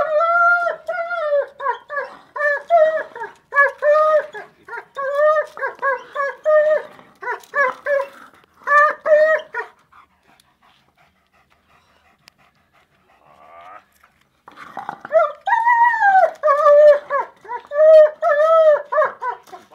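German Shepherd whining in a long string of short, high, rising-and-falling notes, fixated on a stone it is pawing and nosing. The whines stop about halfway through for several seconds, then start again.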